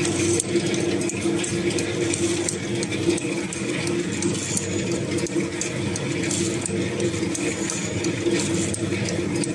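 Rotary bottle filling and capping machine running steadily at production speed: a continuous mechanical hum with a constant tone and light rattling clicks. It runs smoothly enough that a coin stood on edge on its frame stays upright, a sign of low vibration.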